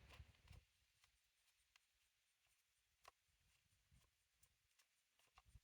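Near silence, with a few faint, scattered clicks from a small Phillips screwdriver working the screws out of a Dyson cordless vacuum's battery housing.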